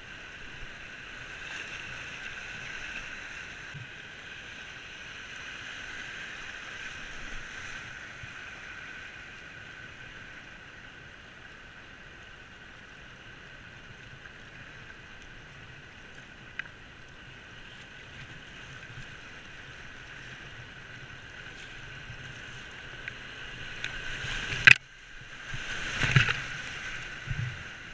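Whitewater rushing steadily around a whitewater kayak as it is paddled down a rapid. Near the end comes a sharp smack as the kayak hits the water, then a loud churn of whitewater as the bow plunges into a breaking wave.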